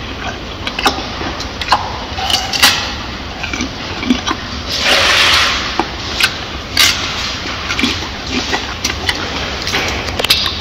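Silverback gorilla chewing food, with wet crunching and smacking clicks at an uneven pace. About five seconds in comes a loud hissing rush lasting about a second.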